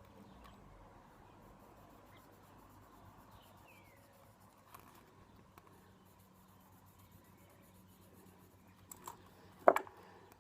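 Faint scratching of a pen drawing on a plastic fidget spinner, with a few light clicks and one sharp, loud click near the end.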